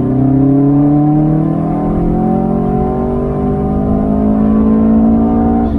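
Subaru STI's turbocharged EJ25 boxer engine pulling hard under acceleration, heard from inside the cabin, its note rising steadily in pitch as the revs climb. The sound breaks off abruptly at the very end.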